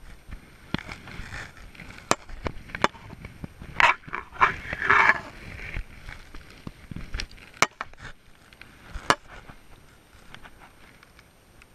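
Irregular clicks and knocks of gear being handled close to the camera in a small boat, with a louder rustling burst about four seconds in.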